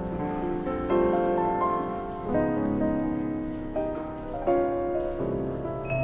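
Background music led by piano, with a new chord or note group about once a second.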